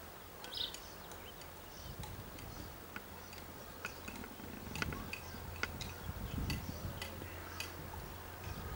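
Quiet outdoor ambience with a low steady hum and irregular light clicks and ticks scattered throughout.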